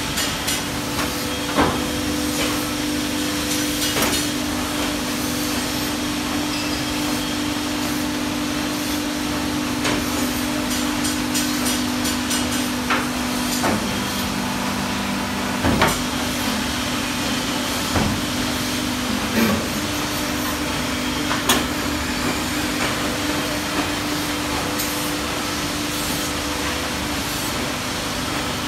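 250-ton hydraulic press running: its pump unit hums steadily, and the hum drops lower for about five seconds around the middle while the ram is down pressing the sheet, then comes back up. Sharp metallic knocks sound now and then over the general workshop noise.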